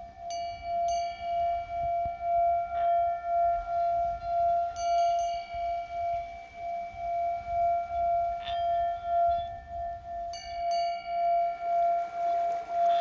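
Himalayan singing bowls: one low bowl tone sustains with a steady pulsing wobble, while higher ringing tones are struck several times and each rings on.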